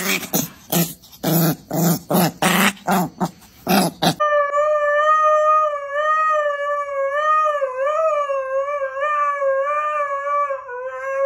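A puppy gives a quick run of about ten short yaps and growls. Then, about four seconds in, a husky lets out one long howl, its pitch wavering slightly.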